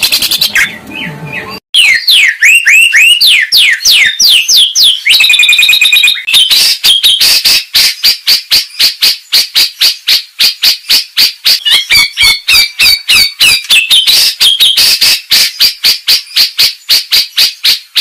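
Recorded songbird calls for training caged birds. A call cuts off abruptly, then a string of quick falling whistles follows. From about six seconds in comes a fast, even run of sharp repeated notes, around four a second.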